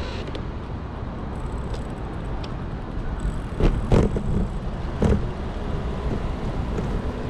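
City street noise: a steady low rumble, with a few louder knocks about halfway through and another a second later.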